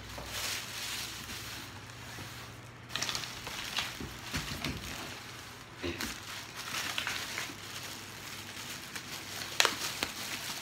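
Plastic bag and packaging crinkling and rustling as it is handled, with several sharp crackles.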